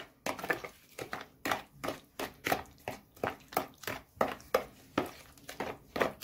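A metal spoon stirring a thick cottage-cheese, egg and semolina mixture in a bowl: an uneven run of scrapes and clicks against the bowl, about three a second.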